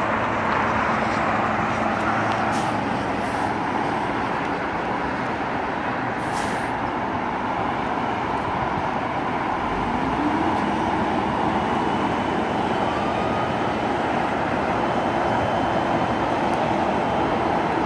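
A steady roar of road traffic. About ten seconds in, a dump truck's engine rises in pitch as its bed begins to tip up.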